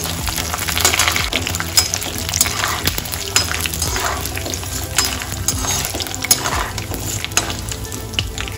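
A tempering of mustard seeds, dals, dried red chillies, peanuts and curry leaves sizzling in hot sesame oil in a kadai, with irregular crackles and pops. A perforated steel ladle stirs and scrapes it around the pan.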